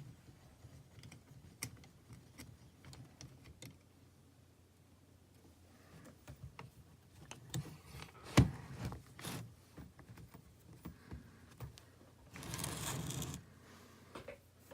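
Small clicks, taps and scrapes of handling at a soldering bench while large metal tabs are being desoldered, with one sharp knock about eight seconds in as the loudest sound. A hiss of about a second comes near the end.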